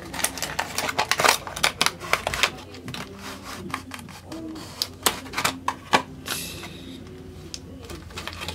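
Packaging being opened and handled by hand: a run of irregular sharp clicks, crackles and crinkles.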